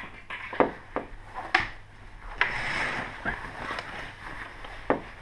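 Curtain being drawn around a lens held against a window pane: fabric rustling, with half a dozen light clicks and knocks spread through it.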